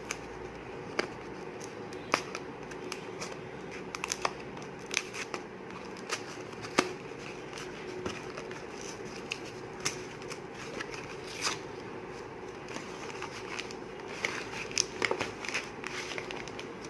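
A packet of dishwash powder being handled and opened: irregular crinkling and crackling of the packaging, with sharp clicks scattered throughout.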